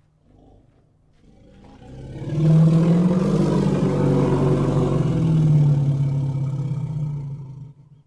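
An elephant giving one long, low-pitched roar that swells in over about a second, holds for about five seconds, and fades out near the end.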